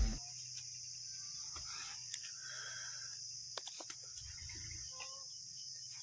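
Steady high-pitched chirring of an insect chorus, crickets, with a few faint short clicks in the middle.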